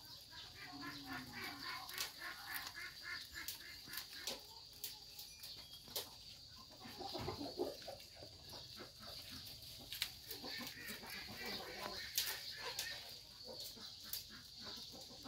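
Young goats tearing and chewing leaves from a leafy branch: leaves rustling and stems snapping in many short sharp clicks. A chicken clucks at times, in runs near the start and near the end.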